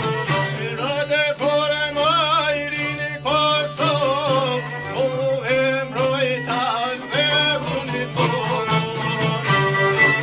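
Albanian folk ensemble playing a heroic song: a man sings a wavering, ornamented melody over violin, accordion, strummed long-necked lutes and a frame drum. The voice drops out about three-quarters of the way through, leaving the instruments playing on.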